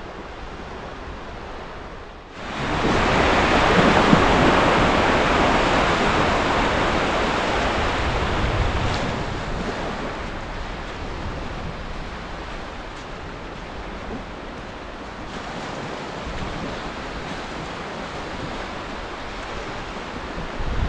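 Surf washing in over a flat sandy beach: a steady rush of water that swells up about two seconds in and slowly eases off, with wind rumbling on the microphone.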